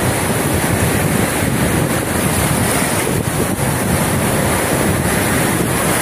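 Storm surf breaking and washing up a sandy beach in a steady rush, with wind buffeting the microphone.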